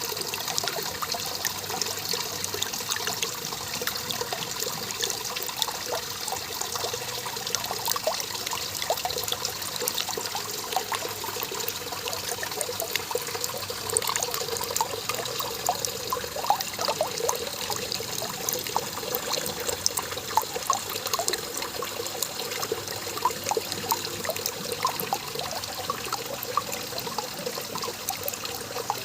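Small garden waterfall trickling and splashing steadily into a pool.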